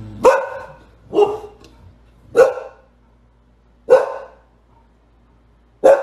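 Dogs barking: five loud single barks, one every second or two.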